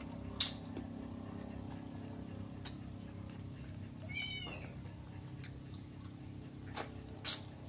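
A cat meows once, briefly, about four seconds in. Sharp mouth clicks and smacks from eating meat by hand come and go, the loudest just after the start and near the end, over a steady low hum.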